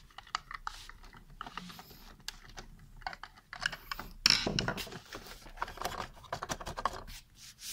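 Light clicks and ticks of the monitor stand's plastic neck and its screws being worked with a screwdriver and handled, with a louder plastic clatter about four seconds in.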